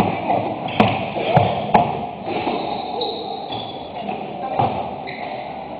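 Basketball play on a hardwood gym floor. A few sharp thuds of the ball bouncing and players' feet landing come in the first two seconds, then several short squeaks of shoes on the floor, with players' voices in the background.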